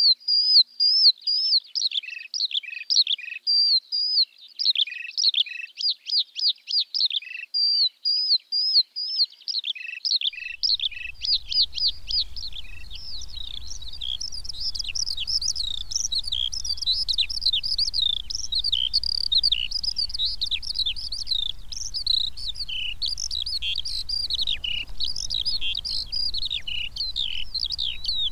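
Eurasian skylark singing its long, unbroken song of rapid trills and warbles, high-pitched and without pauses. About ten seconds in, the song turns denser and a steady low rumble joins beneath it.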